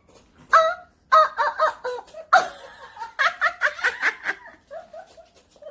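A woman making a strange, honking, goose-like noise with her voice, in quick runs of short pitched notes.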